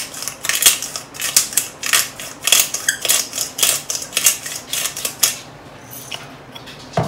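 Black pepper grinder being twisted by hand: a dry, crunchy grinding in quick strokes, about three a second, which stops about five seconds in.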